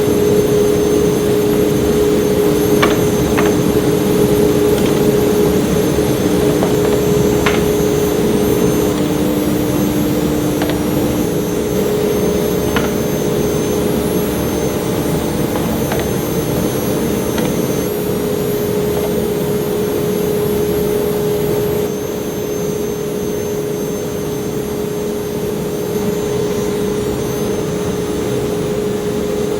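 CNC router spindle running steadily with a constant whine while machining slots in walnut, with a few faint ticks. A second, lower tone fades out partway through and the level drops slightly near the end.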